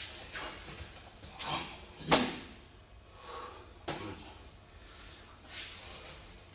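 Scattered sudden knocks and cloth swishes from two karateka in gi blocking, grabbing and striking in a partner drill on tatami mats; five separate sounds, the loudest a sharp hit about two seconds in.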